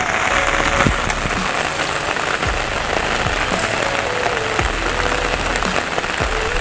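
Heavy rain pouring steadily, a dense even hiss on the water and vegetation, with a few louder close drops.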